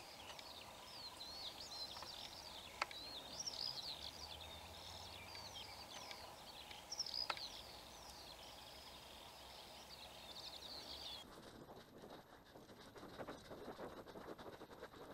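Faint songbirds singing: many quick, high chirps and short trills, rising and falling. The song cuts off about eleven seconds in.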